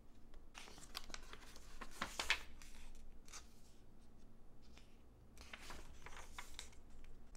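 Pages of a glossy magazine turned by hand: quiet paper swishes and crinkles, coming in two bunches of turning.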